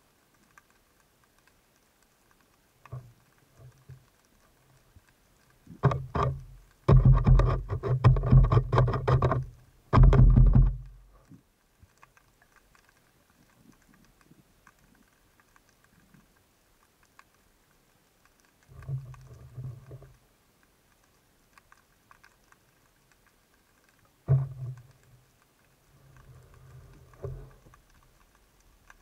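Underwater fish-attracting calls (richiami) made by a spearfisher waiting on the bottom: bursts of a low, rapid rattling sound. The loudest and longest run for about five seconds from about six seconds in, and shorter ones come near the middle and toward the end.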